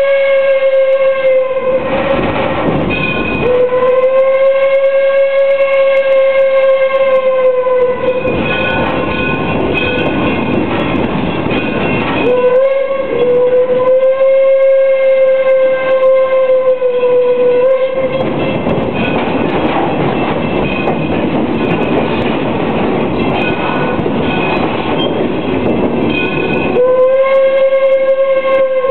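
Steam whistle of the 1897 Baldwin locomotive No. 7 blowing long, steady single-note blasts in the grade-crossing pattern: the end of one long blast, then a long, a short and a long, and another long blast starting near the end. Between the blasts, the train's running noise and wheel clatter are heard from an open passenger coach.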